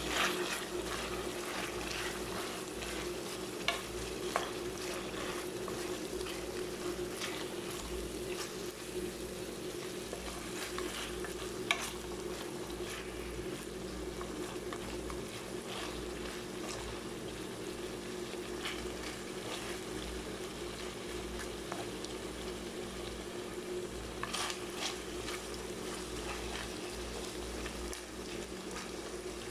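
Chicken pieces and green peppers sizzling in oil and sauce in a wok, stirred with a wooden spatula that clicks and scrapes against the pan a few times. A steady low hum runs underneath.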